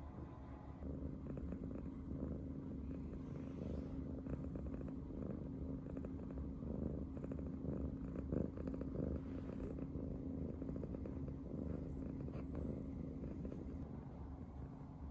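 Brown tabby cat purring steadily with a fast, low, continuous rumble: a contented, happy purr.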